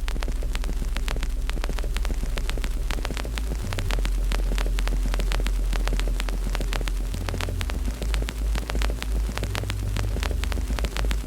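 Wood fire crackling, with many sharp pops a second over a steady low rumble.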